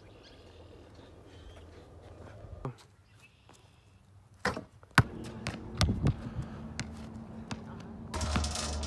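Outdoor wind rumble on the microphone, with two sharp knocks about halfway through as a basketball strikes the hoop; the wind gets louder near the end.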